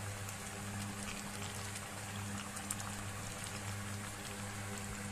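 Fish curry gravy simmering in a metal kadai, with a steady fine bubbling and crackling and a low hum underneath. A sharp knock comes at the very end.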